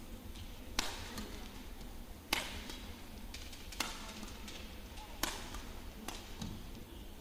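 Badminton rackets striking a shuttlecock during a doubles rally: sharp hits about every second and a half.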